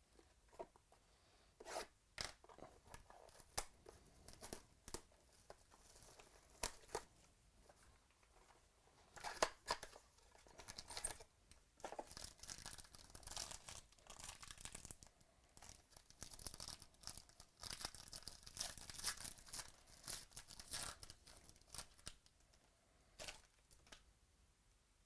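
Trading-card box packaging being torn open and handled: scattered sharp clicks and snaps for several seconds, then a longer spell of tearing and crinkling of wrapper material, dying away near the end.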